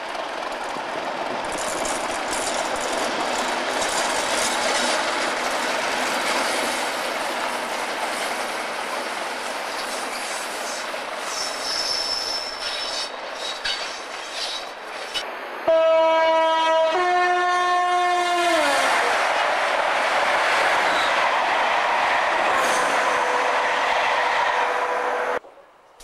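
Train passing at close range with steady wheel and rail noise and a brief high wheel squeal about 12 s in. About 16 s in, a train's two-tone horn gives a loud blast of two notes lasting about three seconds, its pitch sagging as it dies away. Running noise carries on until the sound cuts off just before the end.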